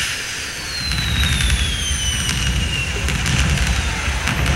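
Fireworks sounds: a long whistle falling slowly in pitch over a couple of seconds, with scattered crackles and a low rumble that swells about a second in.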